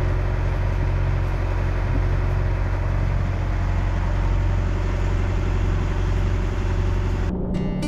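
Sailboat's inboard engine running steadily under way, a low droning hum heard from the cockpit. Near the end it cuts off abruptly and acoustic guitar music begins.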